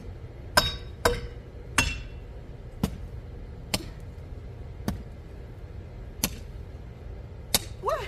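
Metal hoe (jembe) blade chopping into hard, rocky garden soil: about eight sharp strikes, roughly one a second, some ending in a short metallic clink as the blade hits stones.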